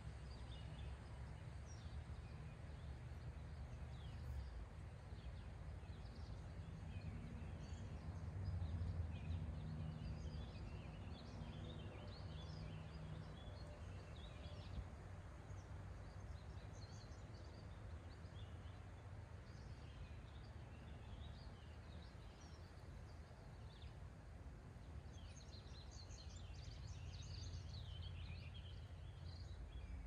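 Faint outdoor ambience of small birds chirping and twittering in short high calls, busiest in the first half and again near the end, over a steady low background rumble.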